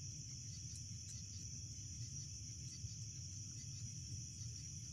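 Crickets chirping in a steady high-pitched chorus over a low, even rumble, with a few faint ticks.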